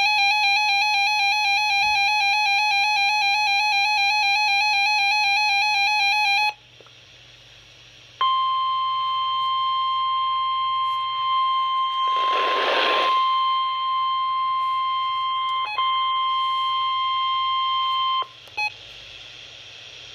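NOAA Weather Radio weekly test signals: a warbling, buzzy digital SAME header data burst for about six and a half seconds, a short gap of receiver hiss, then the steady 1050 Hz warning alarm tone for about ten seconds, broken by a burst of static partway through. A brief blip and radio hiss follow.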